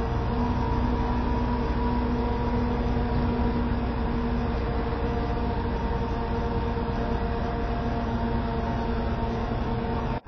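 Heavy lifting machinery running steadily: a low engine drone with steady whining tones over it. It cuts off suddenly near the end.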